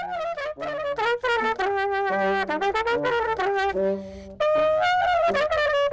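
Trumpet playing a melody of quick notes. It breaks off briefly about four seconds in, then resumes.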